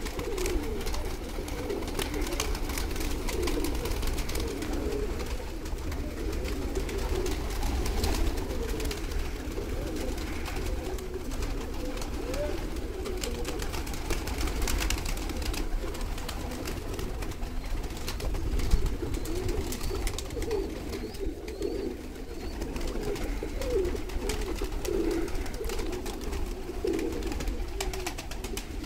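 Many domestic pigeons cooing continuously as a flock, their calls overlapping into a steady low burble. Scattered wing flaps and claps sound as birds take off and land, over a low steady rumble.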